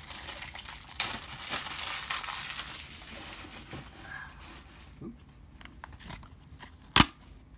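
Cellophane shrink wrap crinkling and tearing as it is stripped off a DVD case, fading after about four seconds. Near the end comes one sharp click, the plastic DVD case snapping open.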